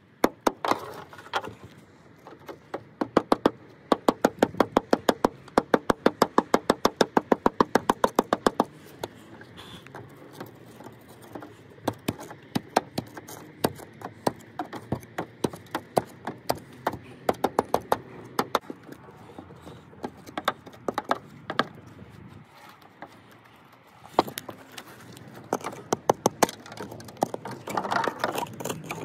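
Old mortar pointing being chipped out of the brick joints above lead step flashing with a metal hand tool: a fast, even run of sharp taps, about three or four a second, from about three to nine seconds in, then scattered knocks.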